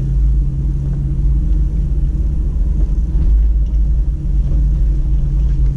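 Steady low rumble of a Toyota Tacoma pickup driving on a rocky dirt trail: engine and tyre noise heard from inside the cab.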